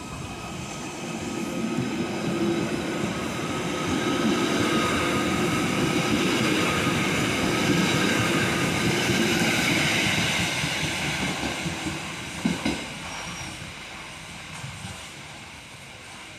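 A train running past on the track. Its noise swells over the first few seconds, holds, then fades after about ten seconds, with steady high whine tones over the rumble. Two short knocks come about twelve seconds in.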